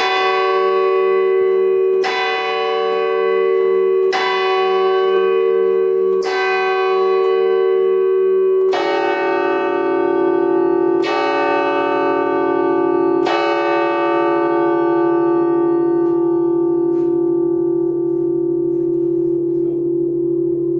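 Large church bells heard close up inside the bell tower. One bell strikes four times, about two seconds apart, then a lower-pitched bell strikes three times at the same pace, and its deep hum rings on for several seconds after the last stroke.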